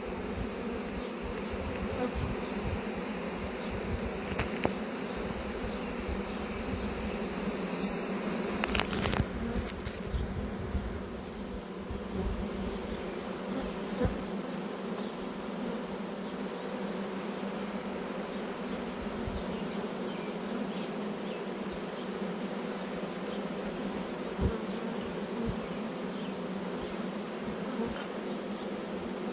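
Honey bee swarm buzzing: a steady, dense hum of many bees flying around the swarm branch and the nuc box they are being hived into, with a few brief knocks, the clearest about nine seconds in.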